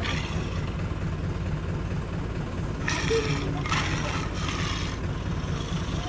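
Safari bus engine running with a steady low rumble as the vehicle drives, with a few short, faint higher sounds about halfway through.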